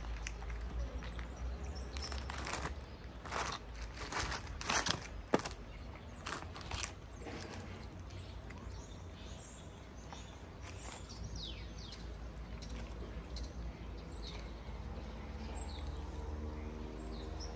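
Cat eating from a plastic food tub: a run of wet chewing and crunching clicks through the first several seconds, with one sharper click about five seconds in. Faint small-bird chirps follow later, over a low outdoor rumble.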